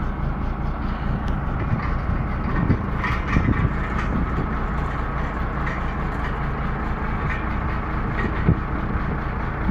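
Komatsu bulldozer's diesel engine running steadily, with a few short knocks or clanks over it.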